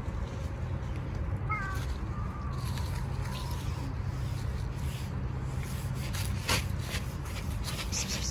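A cat gives one drawn-out meow about a second and a half in, its pitch sliding slightly down as it trails off, over a steady low background rumble. A single short click comes later.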